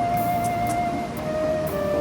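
Background music: a slow melody of long held notes that step from one pitch to the next.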